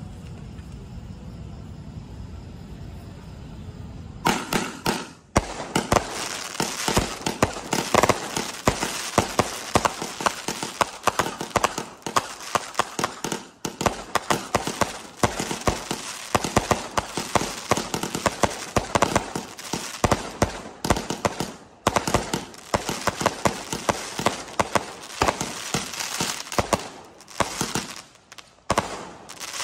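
A 70-shot 'Rambo' consumer fireworks cake firing. About four seconds in, a rapid string of sharp cracks and bursts begins, several a second, and carries on for over twenty seconds before stopping shortly before the end.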